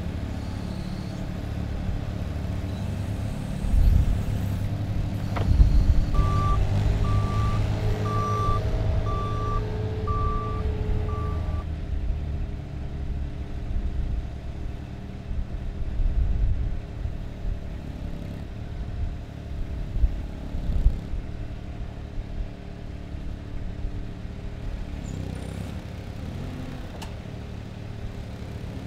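Moffett truck-mounted forklift's engine running, with a reversing alarm beeping six times, about once a second, starting about six seconds in.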